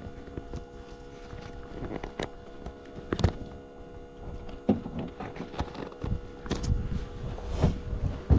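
Irregular knocks, clicks and rustles of equipment being handled close to the microphone in the gyrocopter cockpit, more frequent in the second half, over a steady electrical hum.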